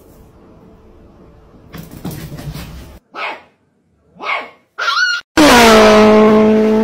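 A puppy barks three short times, the last a sliding yip. Then comes a loud, long, steady cry that dips slightly in pitch at its start and holds for about two seconds; its source is not seen.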